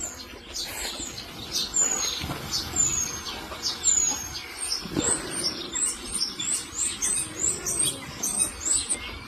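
Small birds chirping and singing: many short high notes with a few clear falling whistles, the chirps coming quickly one after another in the second half.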